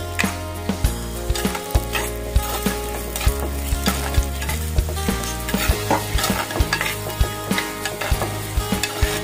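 A steel spoon stirring sliced onions in a hot clay pot, knocking and scraping against the pot many times at an irregular pace, while the onions sizzle.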